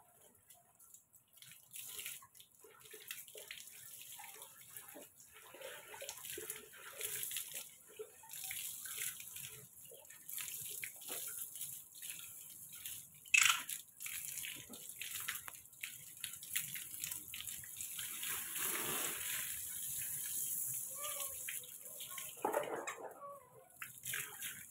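Water from a garden hose splashing and running as a small monkey is rinsed over a bucket onto a wet concrete floor. It is irregular splashing and pouring, with one sudden sharp sound about halfway through and a steadier rush of water a few seconds later.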